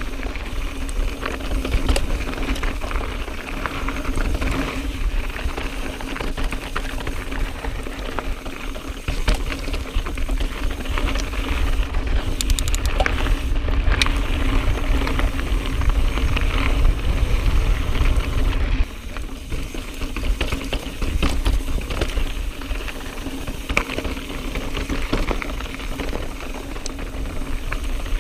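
YT Jeffsy full-suspension mountain bike clattering and rattling over rocky singletrack, tyres crunching on gravel and rock, with a steady low rumble of wind on the helmet camera's microphone.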